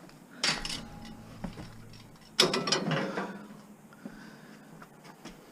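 Pieces of scrap metal being shifted and set down: two bursts of clattering, the second, about two and a half seconds in, the louder, with smaller rattles between.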